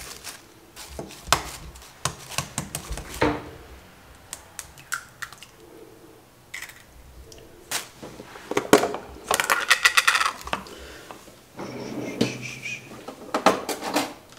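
Kitchen handling sounds: scattered sharp taps and clinks as an egg is cracked on the rim of a stainless steel mixing bowl. A denser crinkling rattle follows past the middle as the foil seal of a requeijão tub is peeled back, and cutlery clinks in an opened drawer near the end.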